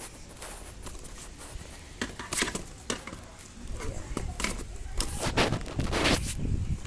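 Clicks, knocks and a scraping rustle of scooter parts being shifted and handled by hand, with the loudest, longest scrape about five to six seconds in.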